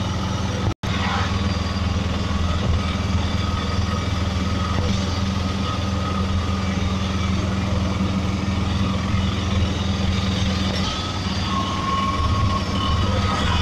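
Auto-rickshaw's small engine running steadily under way, with road and wind noise, heard from inside the open cab. The sound cuts out for an instant about a second in.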